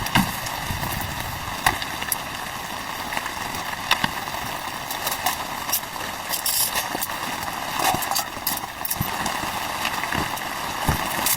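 Steady rain with scattered small knocks and taps throughout.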